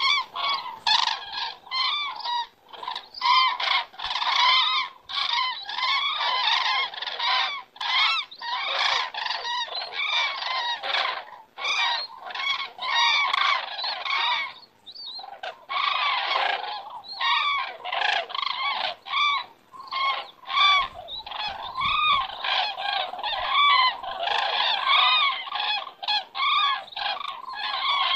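A flock of common cranes calling in flight, many trumpeting calls overlapping almost without pause, with a brief lull about halfway through.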